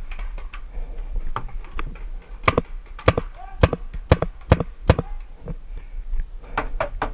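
Tippmann TiPX paintball pistol firing: sharp pops, six at about half-second intervals, then a quick string of four near the end.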